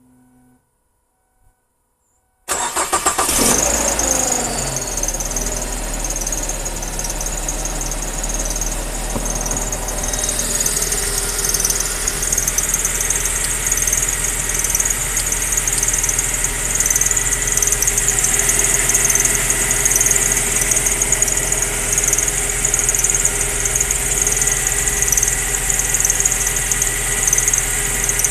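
Ford Focus engine cranking and catching on a cold start about two and a half seconds in, then idling with a continuous high, wavering squeal from the accessory drive belt.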